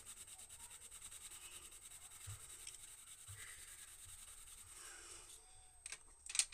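Faber-Castell Polychromos coloured pencil shading back and forth on toned drawing paper: a faint, quick, even scratchy rubbing. Near the end, a few sharp clicks as pencils are handled in the metal tin.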